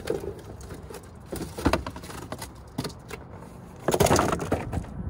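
A cardboard box and its packaging being handled, a run of short knocks and rustles that are loudest about four seconds in, when the box is set down.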